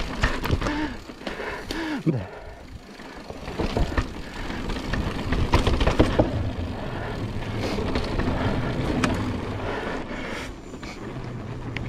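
Mountain bike ridden down a rough rocky trail: tyres rumbling over rock and dirt, and the bike rattling with sharp knocks, loudest about six seconds in.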